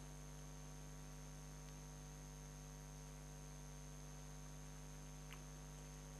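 Faint, steady electrical mains hum with a thin high whine from the recording setup, and one tiny click about five seconds in.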